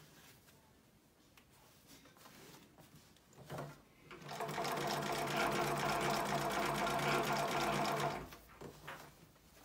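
Juki LU-563 industrial walking-foot leather sewing machine stitching a seam through leather hide and fabric backing in one steady run of about four seconds, starting about four seconds in. Soft rustling of the material being handled comes before and after the run.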